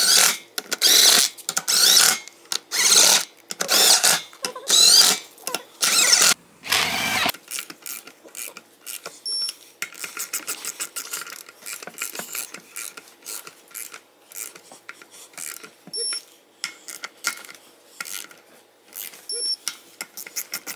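Beadlock ring bolts being fitted on a wheel: six short, loud noisy bursts about a second apart over the first seven seconds, then light metallic clicks and taps for the rest.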